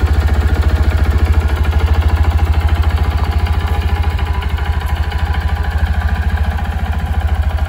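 WK Colt mini-motorcycle's engine idling steadily with a rapid, even pulse.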